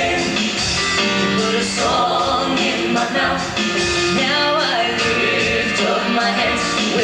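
Gospel vocal group singing, several voices together over instrumental backing.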